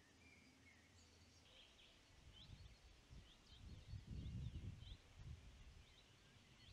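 Faint outdoor ambience: birds chirping, a string of short high calls, with bursts of low rumbling from about two to five seconds in.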